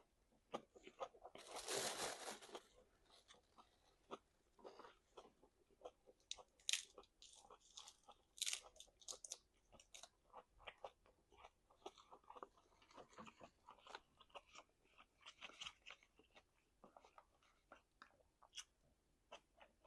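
A person chewing and biting meat close to the microphone: a run of short, wet clicks and crunches, with a longer, louder burst of noise about two seconds in.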